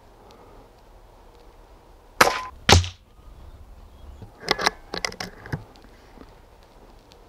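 Daystate Huntsman pre-charged air rifle, with its built-in sound moderator, fired once with a sharp crack, followed about half a second later by a second, deeper crack. Roughly two seconds later comes a quick series of metallic clicks as the bolt is worked back and forward to load the next pellet from the magazine.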